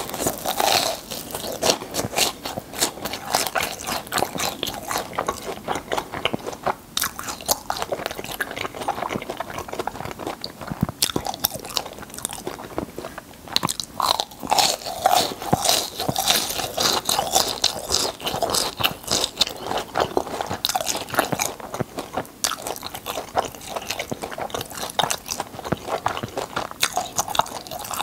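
Crisp fried churro being bitten and chewed close to the microphone: repeated crunching with wet chewing in between.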